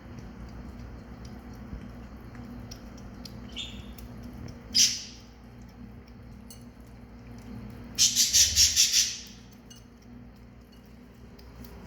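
Bird calls: one short high squawk about five seconds in, then a rapid run of about seven high chirps near eight seconds, over a low steady hum.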